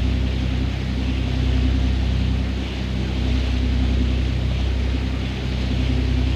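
A fishing boat's motor running steadily while trolling, with a steady rushing hiss over it.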